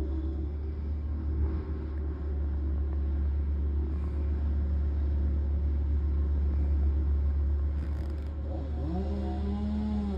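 Bandit Intimidator brush chipper's engine running with a steady low rumble. Near the end a pitched sound rises and holds briefly.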